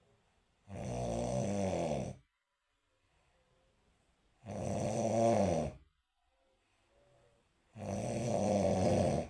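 A person snoring: three long snores about three and a half seconds apart, each lasting about a second and a half, with near quiet between them.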